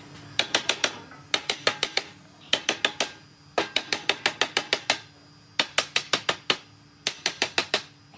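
Quick series of sharp taps, about eight a second, in six bursts of four to a dozen strikes separated by short pauses: tapping on wood in a woodworking shop.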